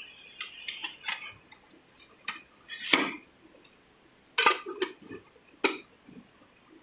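Sheet-metal top panel and casing of a cold spark machine being handled and set back in place: a string of metallic clanks and clicks, the loudest about three seconds in.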